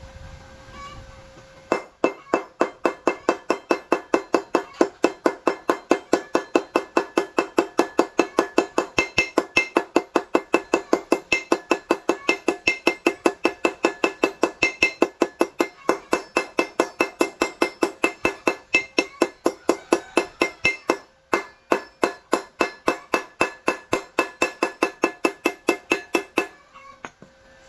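Hammer striking steel in a fast, even series, about four ringing blows a second, with a short break partway through.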